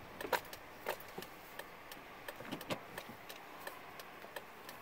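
Quiet car cabin with the car stopped in traffic and the engine idling, with a scatter of faint, irregular small clicks.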